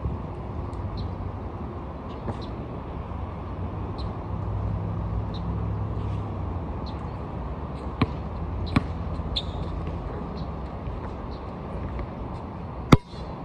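A basketball bounces twice on the outdoor court as sharp knocks, then gives one loud sharp knock near the end just after a shot is released, over a steady low rumble of background noise.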